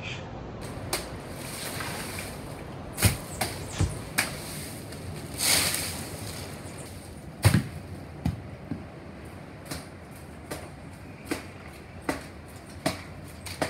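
A coconut picker working in a palm tree: irregular sharp knocks, some in quick succession, a rustling swish about five and a half seconds in, and a heavier thud about two seconds later.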